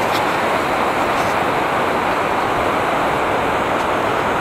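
Steady rush of a fast mountain stream flowing over rocks, an even, unbroken water noise.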